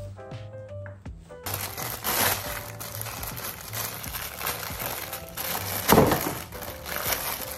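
Thin clear plastic wrapping crinkling as a wire whisk is pulled out of its bag. The crinkling starts about a second and a half in and peaks near the end. Soft background music plays under it.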